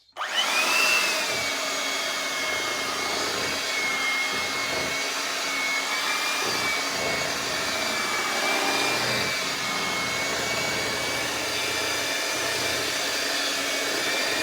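Electric kitchen mixer switched on and running steadily, mixing colouring into cake batter, its motor whine rising as it spins up and then holding a steady pitch.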